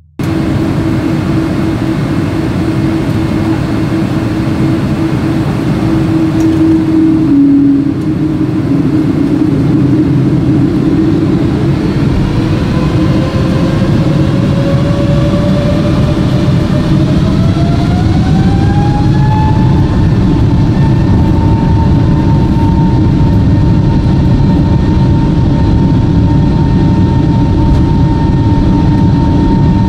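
Boeing 777's Pratt & Whitney engines spooling up to takeoff power over a loud, constant rumble. A whine rises over about eight seconds in the middle, then holds at a steady high tone.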